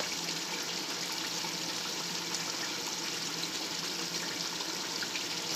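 Chicken and tomato gravy simmering in a large aluminium pot, with a steady hiss.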